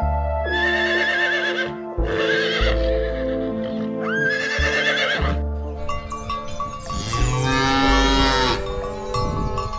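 Farm animal calls over background music: three short calls with a wavering pitch, then a longer call about seven seconds in.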